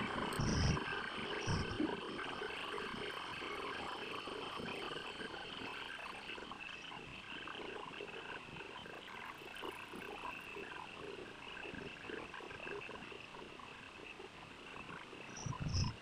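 Colour pencil scratching rapidly on paper as the petals are shaded. A few soft low knocks come near the start and just before the end.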